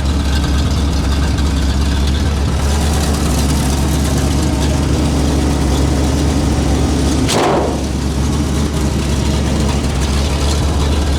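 1966 Chevrolet C60 grain truck's engine, a replacement with under 8,000 miles, idling steadily. A brief sharp noise cuts in about seven seconds in.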